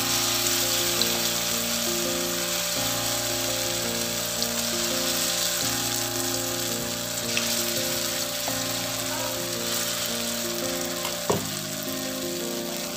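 Masoor dal pakoras deep-frying in hot oil: a steady sizzle as spoonfuls of batter are dropped into the oil.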